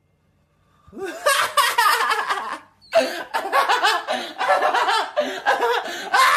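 A man laughing hard. It starts about a second in, breaks off briefly near the middle, then carries on.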